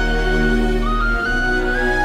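Calm background music: a single high, flute-like melody of long held notes, stepping upward, over sustained low chords.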